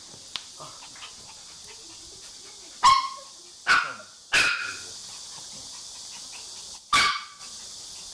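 Maltese dogs barking excitedly, eager to have their walking vests put on first: three sharp barks in quick succession about three seconds in, then one more about seven seconds in.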